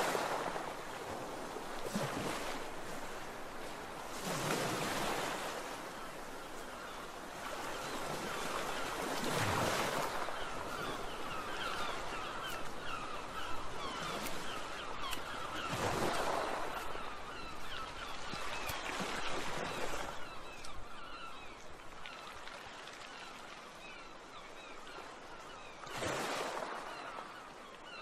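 Ocean surf: waves washing in and drawing back in swells every few seconds, with faint high chirps running through it.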